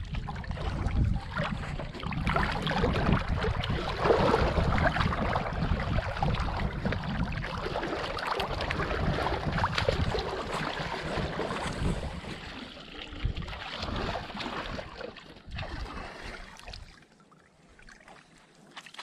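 Water splashing and sloshing as a hooked eel-like fish thrashes at the surface, with wind buffeting the microphone. It dies away about two seconds before the end.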